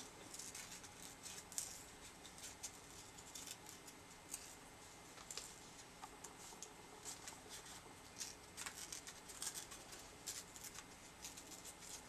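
Handmade paper being torn by hand along the edges of a narrow strip: faint, irregular little rips and crackles.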